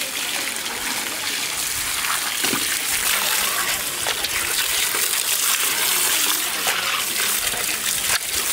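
A steady stream of running water splashing onto fish heads in a wicker basket as they are rinsed, with a few soft knocks as the wet fish heads are handled.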